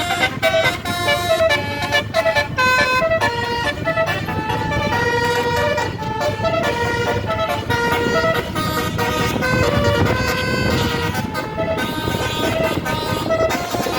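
Basuri telolet 36-note musical bus horn playing a quick melody of short pitched notes, over the bus's steady engine and road noise.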